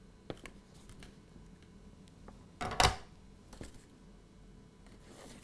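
Quiet soldering-bench handling: a few faint clicks, then one short clatter about three seconds in as the soldering iron is set down after the joint is made, followed by a couple of small clicks.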